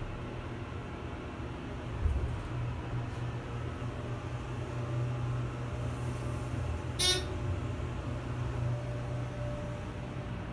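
ThyssenKrupp hydraulic elevator car travelling up one floor, heard from inside the cab: a steady low hum while it rides smoothly. There is a thump about two seconds in and a short bright ding about seven seconds in.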